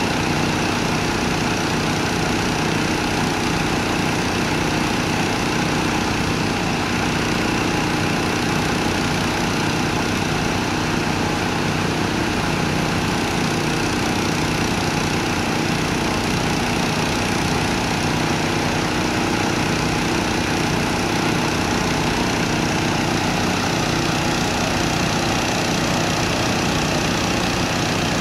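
A motor engine running steadily at idle, an even drone that does not change.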